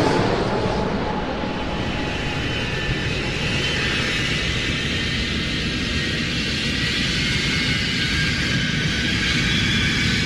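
Jet airliner passing in flight: a steady rushing engine noise with thin high whining tones, easing slightly in the first second and then holding steady.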